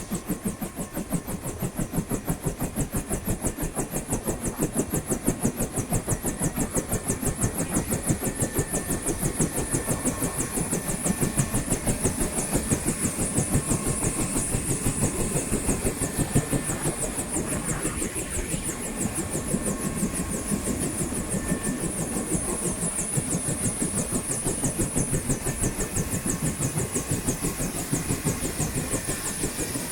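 Bell UH-1H Huey helicopter idling on the ground. The Lycoming T53 turboshaft gives a steady high whine over the fast, even beat of the turning two-blade main rotor.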